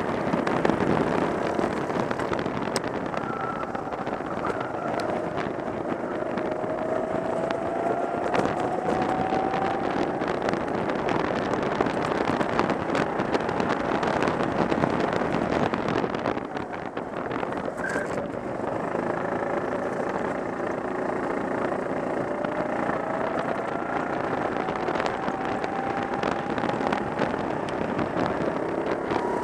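Go-kart engine running hard, heard from on board: its pitch climbs as the kart accelerates, drops briefly about halfway through as the driver eases off, then climbs again.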